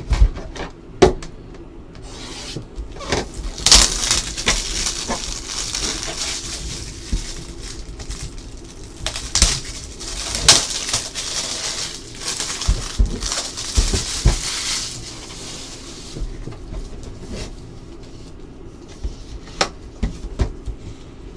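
Hands handling trading-card packaging: crinkly rustling of wrapper and plastic in two longer stretches, among scattered taps and clicks on the table.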